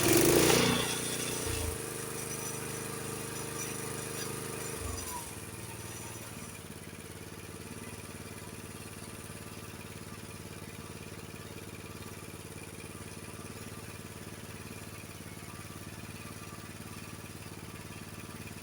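Honda HS724 snowblower's single-cylinder engine starting and running, louder at first, then about five seconds in dropping back into a steady idle of about 2,140 rpm.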